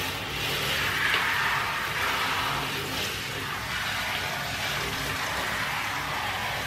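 Handheld shower head spraying water onto a small dog's coat and into a bathtub: a steady hiss of running water.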